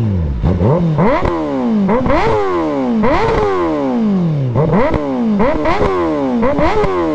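Kawasaki ZX-10R KRT Edition's inline-four, fitted with an M4 slip-on exhaust, being blipped about eight times: each rev shoots up sharply and sinks back slowly, with short crackles from the exhaust, the sound that goes with the flames it spits.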